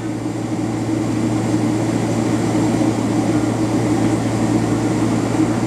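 Steady drone of a jet airliner in flight heard from inside the passenger cabin: engine and airflow noise with a constant low hum.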